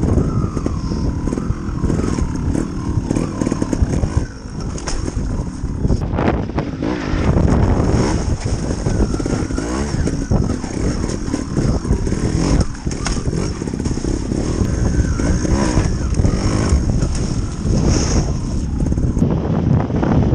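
Gas Gas TXT Racing two-stroke trials motorcycle engine running throughout, revving up and down as the bike climbs over rocks.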